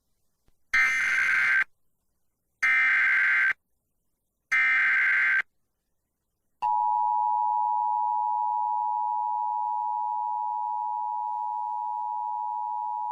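Emergency Alert System activation: three short bursts of warbling SAME header data tones, about a second apart. About halfway through comes the steady two-tone EAS attention signal (853 and 960 Hz), which opens a Flash Flood Warning.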